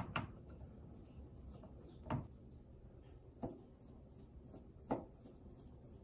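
Phillips screwdriver working screws out of a microwave's sheet-metal panel: five faint clicks, two close together at the start, then one about every second and a half, with light rubbing between.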